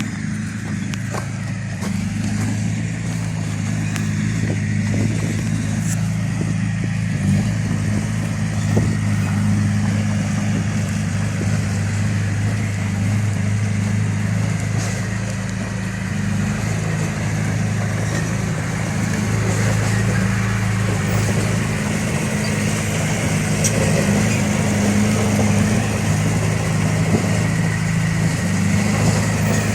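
A heavy diesel engine running steadily at a constant speed, with a low, even hum and a few faint knocks.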